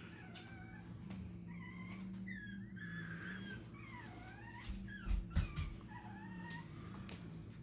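An animal whining: a series of high whimpers that rise and fall in pitch, over a steady low hum, with a few soft thumps about five seconds in.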